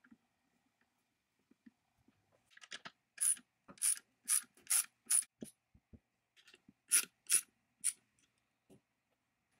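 Socket ratchet clicking in two short runs, about six sharp clicks and then three more, as it tightens the nuts on the steel through-bolts of an electric chainsaw's motor housing.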